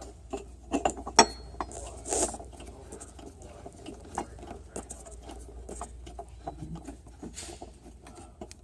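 Screwdriver turning a screw by hand into the plastic of a table's support brace: irregular clicks, creaks and scrapes as the screw bites into the plastic, with a sharp click about a second in.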